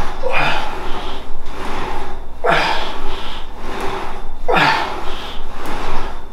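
A man's hard, strained exhalations through teeth clenched on his T-shirt, one per rep of a cable rope pull, three times about two seconds apart.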